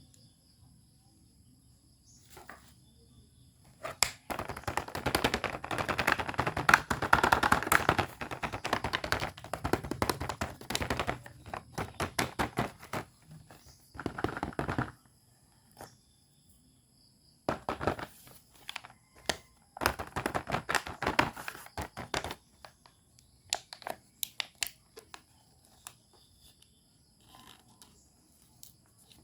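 Hands handling toy packaging and small plastic parts, a dense crackling and clicking in long bursts, with scattered single clicks near the end.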